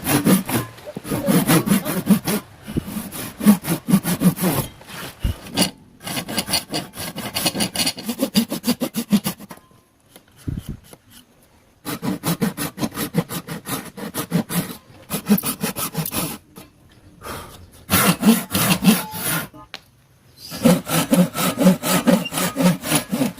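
Hand saw cutting wood with quick back-and-forth strokes, in several runs broken by short pauses, the longest about ten seconds in.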